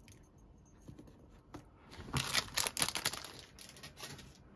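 Crinkling and rustling of a foil blind-bag wrapper as it is picked up and handled, in a loud cluster about two seconds in that dies away, after a few faint taps of small plastic figures being set down.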